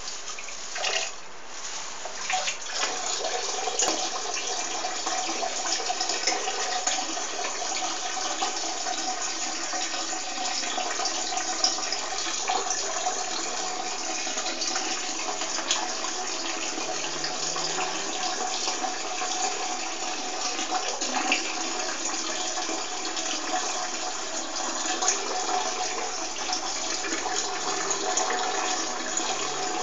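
Urine stream splashing into toilet-bowl water. After a few short splashes, it settles into a steady pour from about three seconds in.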